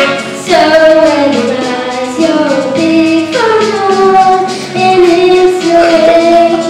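A child singing a song into a microphone, over instrumental accompaniment, with held and gliding notes.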